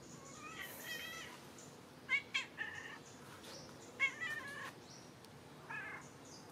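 Orange tabby domestic cat meowing repeatedly, four or five calls spaced about a second apart.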